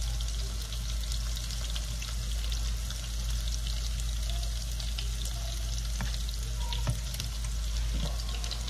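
Half-and-half Alfredo sauce sizzling in a pan on the stove: a steady crackling hiss, with a few light knocks near the end.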